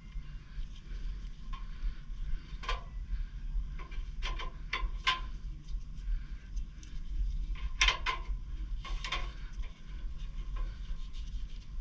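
Several sharp clicks and clanks, like hard objects being handled, over a steady low rumble.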